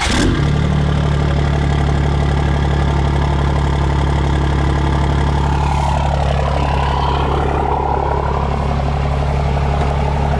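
Pickup truck's engine idling steadily right after starting, heard at its MBRP aftermarket exhaust tailpipe. A higher whine over the deep idle dips in pitch a little past the middle, then rises again.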